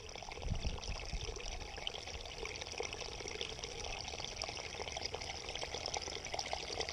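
Water trickling close to the microphone among rocks and reeds at the edge of the water, a steady crackly patter, with a brief low rumble of wind on the microphone about half a second in.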